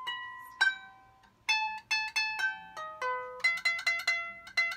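Small wooden lap harp plucked by hand: a few single notes left to ring, then a quicker run of notes from about a second and a half in, with two strings sounded together toward the end as a tune gets going.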